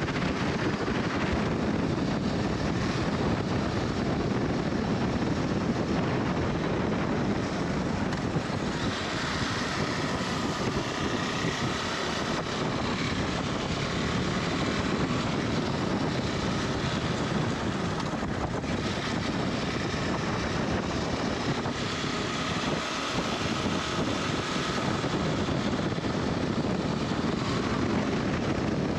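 KTM 390 Adventure's single-cylinder engine running under way, with wind noise on the microphone. A faint whine in the engine note drifts up and down twice, around the middle and again later on.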